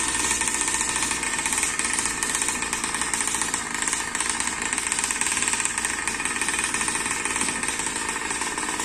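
An RC boat's Zenoah two-stroke petrol engine running steadily with a fast, even pulse, just restarted while the boat is held out of the water.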